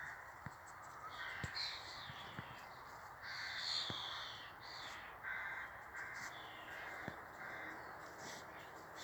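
Birds giving harsh alarm calls, about five in a row with the longest and loudest a few seconds in, raised at a red kite hunting overhead.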